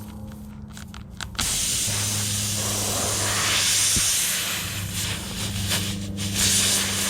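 Pressurised air hissing out of a punctured tire around the plug insertion tool as it is forced into the hole. The hiss starts suddenly about a second and a half in and continues steadily.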